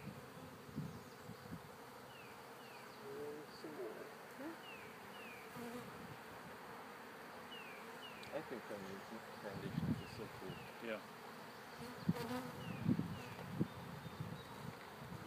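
Honeybees buzzing steadily around an opened hive as its frames are handled. A few soft knocks come in the second half.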